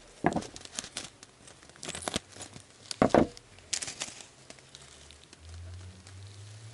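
Clear plastic zip-lock bag of small foam beads crinkling and crackling as it is handled, opened and tipped, in irregular bursts that are loudest about three seconds in and thin out toward the end.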